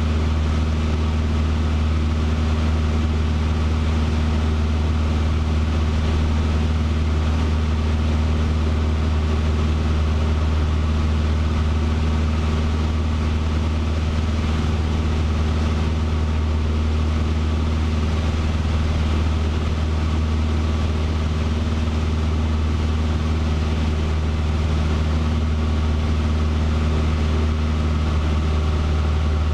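Cessna 150's four-cylinder Continental O-200 engine and propeller running steadily in flight, heard from inside the cockpit as a constant low hum that does not change in pitch.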